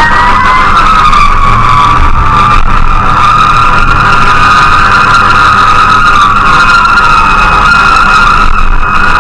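Fire engine siren wailing in slow sweeps up and down, loud, with the truck's engine running underneath.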